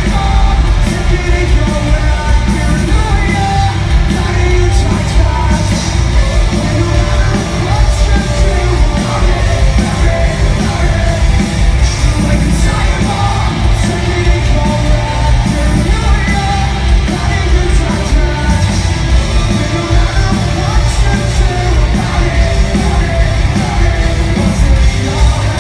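Live rock band playing loud through the stage PA, with electric guitars, drums and yelled singing, heard from within the crowd.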